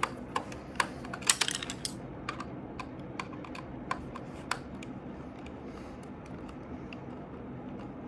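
Small screwdriver turning the battery-cover screw on the plastic underside of a toy remote control car: sharp plastic and metal clicks, a quick cluster about a second in, then scattered clicks that thin out.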